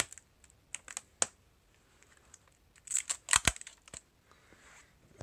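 Adhesive tape being peeled off a stack of swollen lithium battery cells: scattered clicks and crackles, with a louder burst of tearing crackle about three seconds in.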